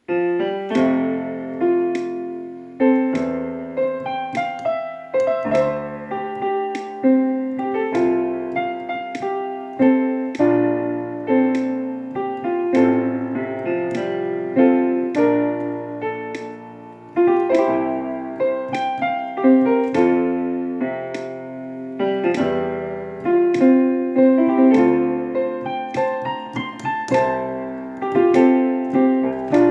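Piano or electric piano playing a slow introduction of sustained chords, with a fresh chord struck every second or two.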